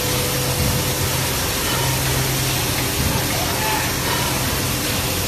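Online plastic crusher for a thermoforming line running steadily: an even rushing noise with a low hum underneath.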